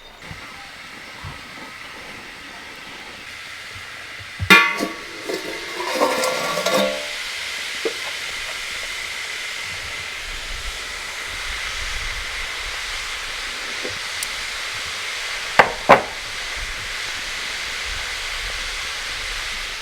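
Steady hiss of food cooking, with metal utensils clattering and ringing about four and a half and six seconds in, and two sharp knocks near the end.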